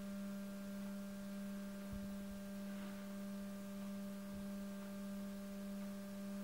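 Steady low hum at one pitch with fainter overtones above it, a humming noise from an unidentified source in a neighbour's house.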